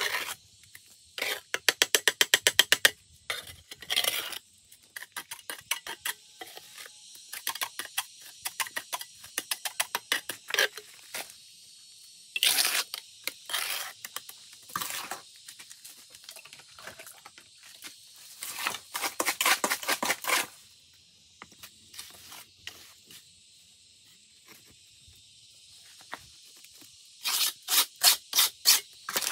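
Repeated rapid scraping or tapping strokes, about ten a second, in three long runs with scattered single strokes between them, over a steady high hiss.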